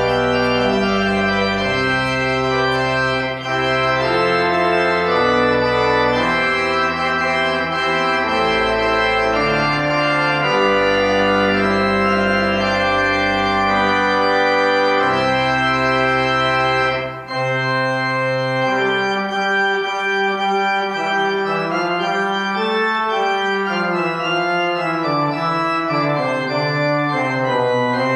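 Organ music: held chords changing every second or two over a moving bass line, the lowest bass notes dropping out about two-thirds of the way through.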